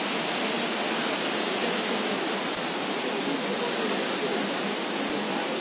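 Steady, even rush of falling water from a waterfall and its rocky stream.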